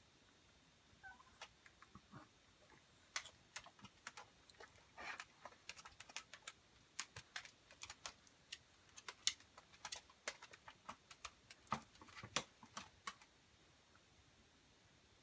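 Chihuahua eating from a bowl: a quiet run of irregular small clicks and crunches, several a second, that stops about two seconds before the end.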